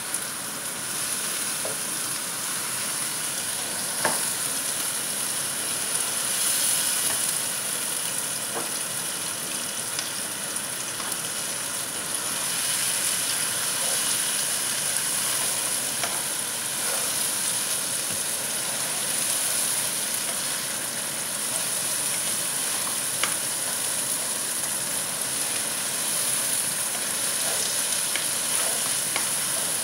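Sliced onions with garlic, chili and ginger sizzling steadily in a nonstick frying pan as they are stirred and scraped with a plastic spatula, with a few light clicks of the spatula against the pan.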